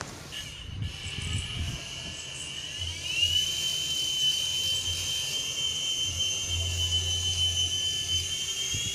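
Jet aircraft engine passing over, a steady high whine that slides up in pitch about three seconds in and then holds while growing louder.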